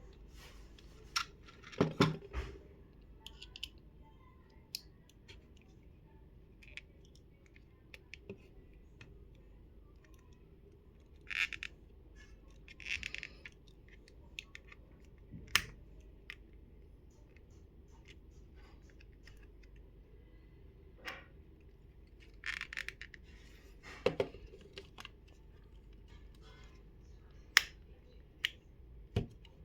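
Screwdriver prying at the plastic front cover of a Nokia N70 phone: scattered sharp clicks and short scrapes, with quiet stretches between.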